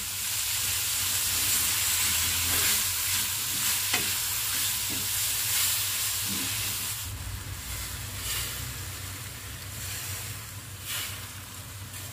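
Wood ear mushrooms, carrot and chicken sizzling in a hot stainless steel wok as they are stir-fried with a wooden spatula, with a few knocks of the spatula against the pan. The sizzle quiets about seven seconds in.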